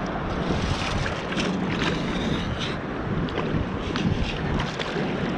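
Long-handled metal sand scoop digging into a sandy bottom in shallow water, with sloshing and splashing and scattered short knocks, over steady wind noise on the microphone.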